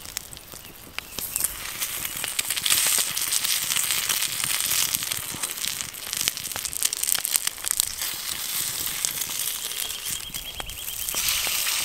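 Egg and flatbread frying in a cast-iron skillet over a wood fire: steady sizzling with fine crackling and spitting, growing louder about two seconds in and flaring again near the end as the bread is flipped over.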